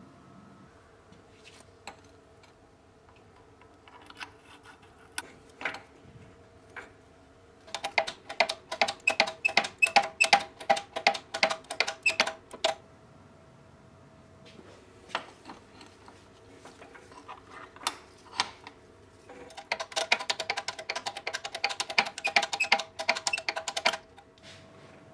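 Rapid metallic clicking from hand tools working on metal, in two runs of about five seconds each at roughly five or six clicks a second, with a few single clicks between them, over a faint steady hum.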